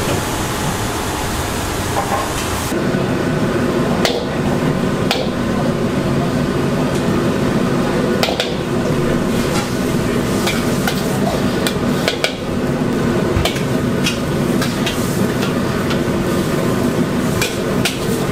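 Metal spatula clanging and scraping against a wok as rice noodles for pad thai are stir-fried, with sharp irregular strikes over the steady roar of the gas wok burner.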